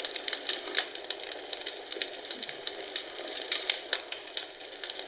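Wood fire crackling in a fireplace: irregular sharp pops and snaps, several a second, over a steady hiss.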